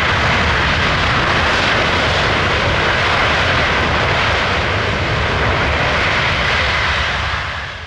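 Boeing C-17 Globemaster III's four Pratt & Whitney F117 turbofan engines running loud and steady during the landing roll after a short touchdown; the noise fades away near the end.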